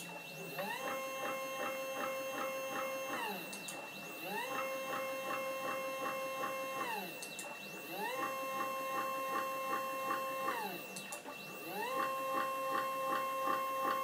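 Stepper motors driving the leadscrews of a CNC-converted Proxxon KT150 cross table through four moves. On each move a whine rises in pitch as the motor speeds up, holds steady for about two and a half seconds with a light ticking about three to four times a second, then falls as the table slows to a stop. A faint steady high whine sits underneath.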